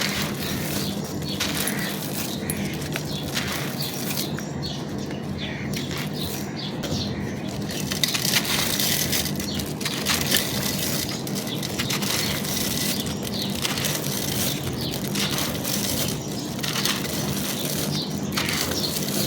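Dry, brittle material such as charcoal or baked clay being crushed and crumbled by hand: a continuous run of crunching and crackling, a little louder about eight seconds in.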